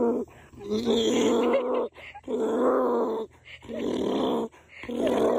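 Donkey braying: a string of loud, rasping calls, each about a second long, following one another with short breaks.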